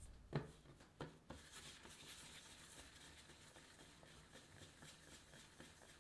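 Ball of bread dough being rolled under a cupped hand on a tabletop to round it: a faint, steady scratchy rubbing with small ticks, after a couple of light knocks in the first second or so.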